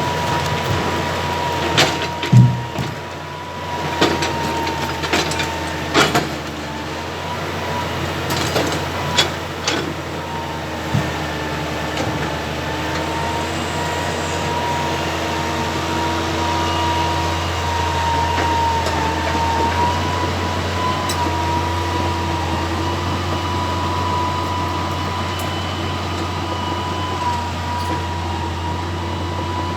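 Excavator's diesel engine running steadily with a constant high whine, and a series of sharp knocks and clunks in roughly the first ten seconds as logs are handled.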